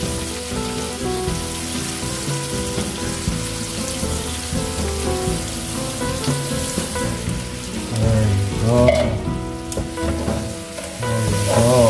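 Hot oil sizzling in a frying pan of sofrito as dry rice is poured in, the grains pattering into the pan.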